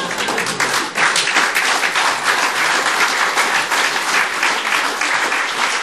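Audience applauding, the clapping growing louder about a second in.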